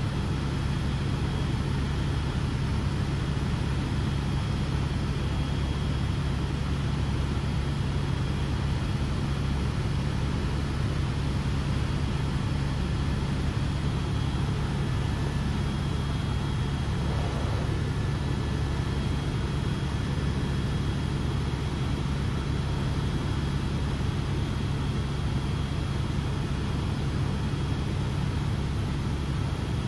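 Helicopter in flight heard from inside the cabin: a steady, unbroken drone with a strong low hum and a faint high whine.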